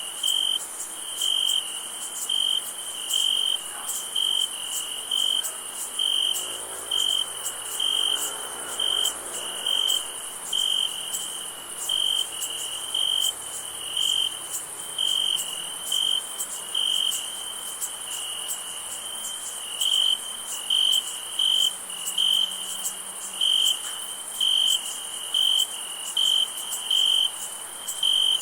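Crickets chirping on a summer night: one loud, high-pitched chirp repeats about twice a second over a continuous, higher insect trill.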